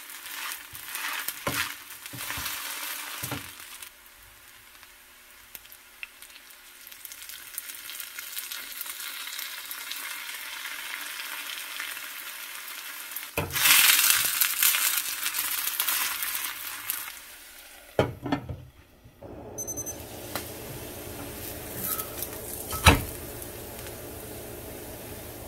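Shredded-potato hash brown frying in oil, with a steady sizzle. In the first few seconds a spatula scrapes and presses against the pan. About 13 seconds in, oil poured around the edge makes the sizzle jump much louder for a few seconds; a sharp spatula knock follows near the end.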